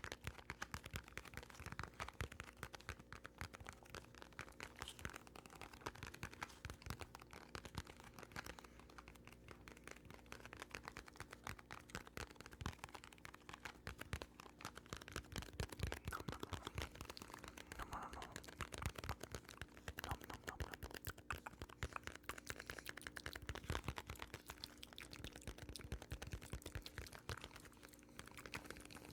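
Rapid, continuous close-microphone tapping and scratching, many small clicks a second, over a faint steady hum.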